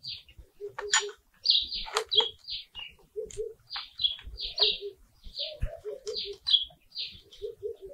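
Birds calling: a dove cooing in short low notes in twos and threes, over frequent higher chirps from other birds. There are a few scratchy crackles as well, from hands digging through dry potting soil.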